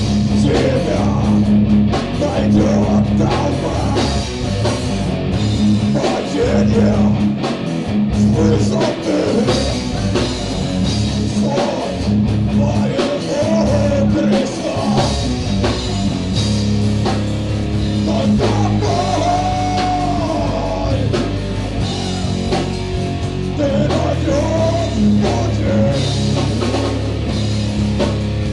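Live heavy metal band playing loud: electric guitars, a drum kit and a vocalist singing into a microphone.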